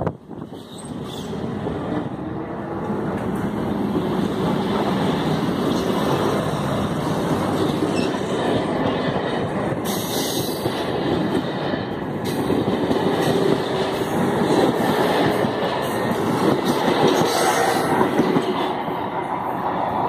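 Toshiba electric multiple unit pulling out of the station and passing close by: steady loud running noise of wheels on rail that builds over the first few seconds.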